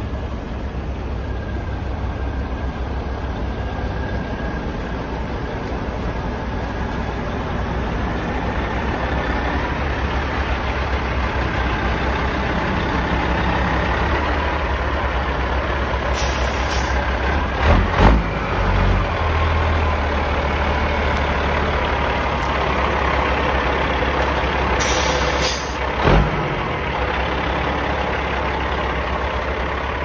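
Diesel engine of a semi tractor pulling a trailer, running low and slow as the rig creeps past, growing gradually louder as it approaches. About halfway through come a short hiss of air and a couple of thumps, and near the end another hiss and a thump.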